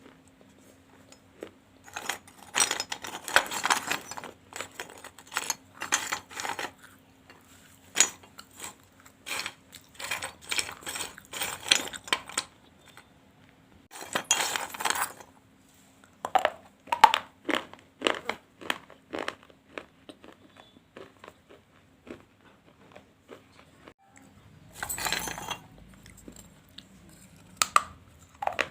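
Brittle baked clay from a gullak (clay money bank) being bitten and crunched: irregular runs of sharp crunches and clinks, with short pauses between bites.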